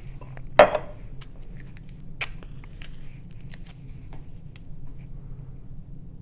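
A match struck once about half a second in, a short sharp scratch, then scattered light clicks and rustles of matches and paper being handled, over a low steady hum.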